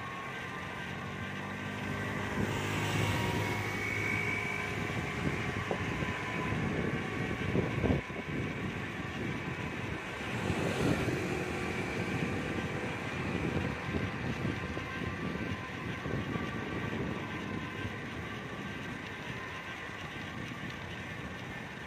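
City traffic heard from a moving bicycle: a steady rush of street noise, with a vehicle passing about three seconds in and another about eleven seconds in, and a single sharp knock in between.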